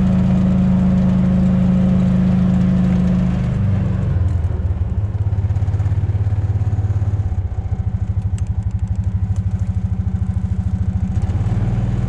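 Kubota RTV utility vehicle's engine, heard from inside the cab. It runs steadily, drops to a slower, pulsing idle about four seconds in, then picks up again near the end.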